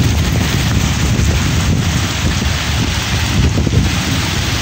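Heavy rain pouring steadily onto a street and pavement, with gusty wind buffeting the microphone and making a low rumble that is the loudest part.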